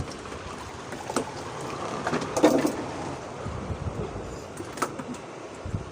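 Wind and water washing around a small fishing boat at sea in rough weather, with a few sharp knocks and a louder burst of noise about two and a half seconds in.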